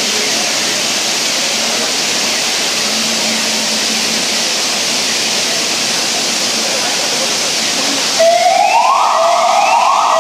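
Steady rushing noise, then about eight seconds in an emergency vehicle's siren starts up, loud, in repeated rising whoops about once a second.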